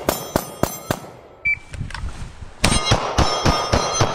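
Pistol fired in quick strings at about four shots a second: the end of one string in the first second, a short electronic shot-timer beep about a second and a half in, then another string of about six shots from near the three-second mark, with a ringing tone behind each string.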